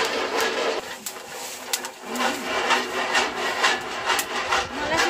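Dry maize kernels rattling and scraping in a sheet-metal roasting box as they are stirred and shaken over a wood fire, with many scattered sharp pops.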